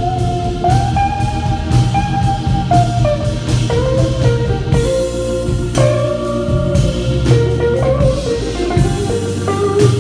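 Live band playing: a lead guitar line stepping over drums and cymbals.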